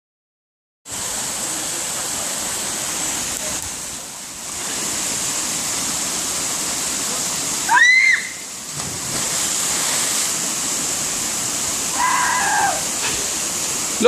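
Small waterfall rushing steadily into a plunge pool. A person gives a short loud yell about eight seconds in as they jump from the ledge, and a briefer call follows near the end.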